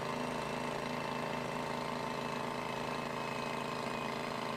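Boeing B-17's electric landing-gear retraction system running during a gear swing on jacks, a steady hum with several fixed tones.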